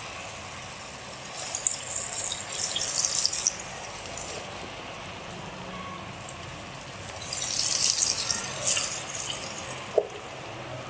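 Cornflour-coated potato fingers deep-frying in hot oil: a steady sizzle and bubbling, with louder crackling spells about a second in and again about seven seconds in. A short click near the end.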